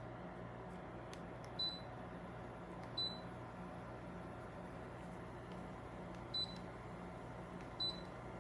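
Four short high-pitched beeps in two pairs, each pair about a second and a half apart, from a ductless mini-split air conditioner's indoor unit acknowledging remote-control presses, over a steady low hum.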